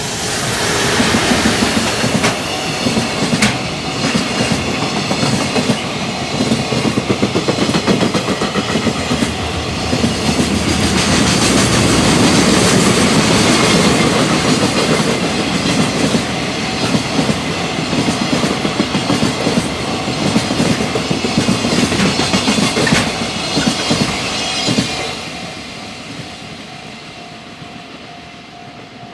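Electric freight train passing at speed: a long run of rapid clickety-clack from the wagon wheels hitting the rail joints over a rolling rumble, fading away as the last wagons pass near the end.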